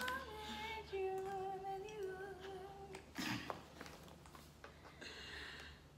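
A woman humming a few long, steady notes for about three seconds, then a short noisy burst.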